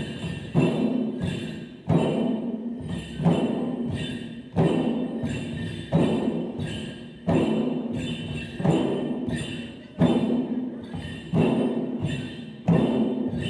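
Several chyabrung, the Limbu double-headed barrel drums, are beaten together in a dance rhythm. A loud accented stroke comes about every 1.3 seconds, with lighter strokes in between.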